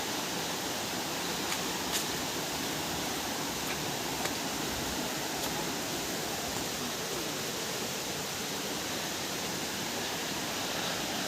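Steady rushing hiss of a waterfall heard from a distance through the forest, with a few faint clicks.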